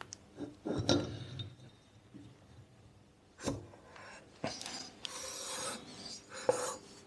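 Aluminium SST265 cylinder being worked down over its studs onto the scooter's crankcase: metal scraping and rubbing, with a few light knocks along the way and more continuous scraping in the last couple of seconds.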